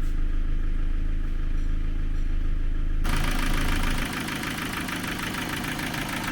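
Ford Focus II petrol engine idling with loud valve clatter, the valves knocking hard. It starts as a muffled steady hum; about three seconds in it changes abruptly to a brighter, rapid, even ticking.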